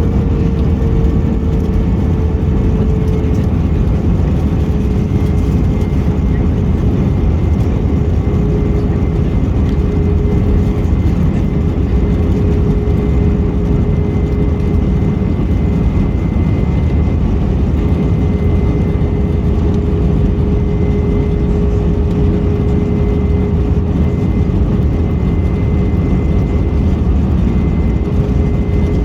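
Steady roar of an Airbus A321 in flight heard inside the cabin: engine and airflow noise with a constant engine hum tone.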